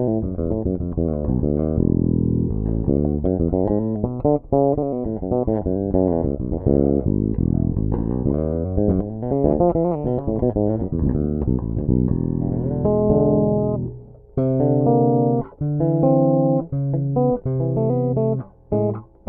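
Sandberg Masterpiece five-string electric bass with an ash body, played through its rear pickup in passive mode and recorded direct through an audio interface. A quick, continuous run of notes gives way about twelve seconds in to separate held notes with short breaks between them.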